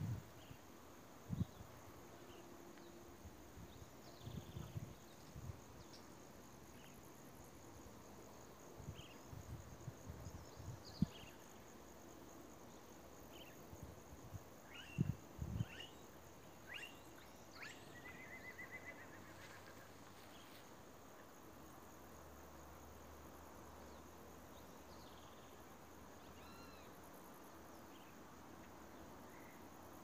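Faint steady high insect drone with scattered short bird chirps and one brief trill, broken by a few low thumps.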